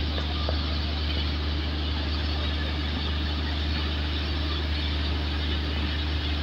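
Fire hoses and riser landing valves discharging water in high-pressure jets during a fire-protection system flow test: a steady rushing hiss of the sprays, over a steady low mechanical hum.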